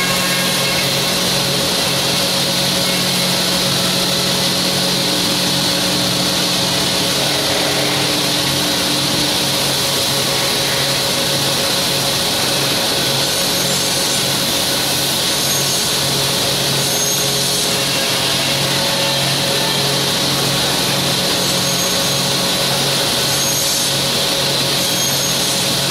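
Balestrini Viva five-axis CNC drilling and mortising machine at work on solid-wood chair parts: a steady machine hum and spindle whine, with cutting noise as its heads drill and mortise the wood.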